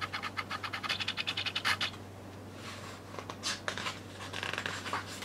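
Paper pages of an album photobook being handled and turned: a fast run of flicking paper rustles for about two seconds, then a few scattered rustles.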